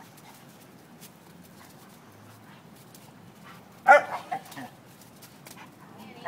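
A Doberman barking during rough play: one sharp bark about four seconds in, followed by a few shorter yips, and another bark right at the end.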